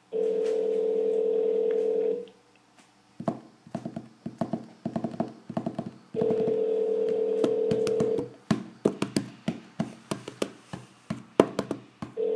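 Telephone ringback tone on a call over Skype: a steady two-second ring, repeated about every six seconds, so the line is still ringing and has not been answered. Runs of quick sharp clicks fill the gaps between the rings.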